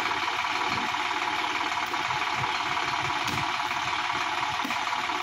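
Sonalika DI-50 RX tractor's diesel engine running steadily at low revs while the tractor sits stuck in mud.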